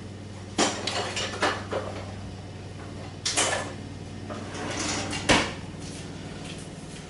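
Kitchenware clattering: a series of clinks and knocks from dishes or jars being handled, the sharpest about five seconds in. Underneath runs a steady low drone from a lawn mower outside.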